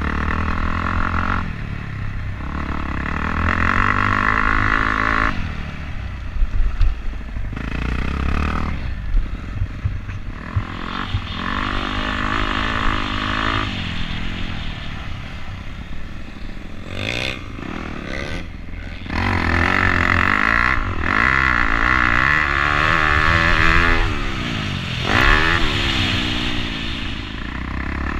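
Dirt bike engine ridden hard, the revs climbing and dropping again and again through the gears, over a low rumble on the helmet camera's microphone. A few sharp knocks come about six to seven seconds in.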